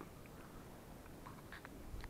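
Quiet open-field ambience: a low, steady rumble with a few faint, very short high ticks, most of them in the second second.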